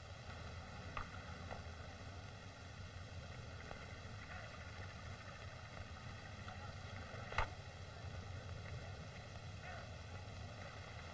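Steady hiss and low hum of an old film soundtrack with no dialogue, broken by a single sharp click about seven seconds in.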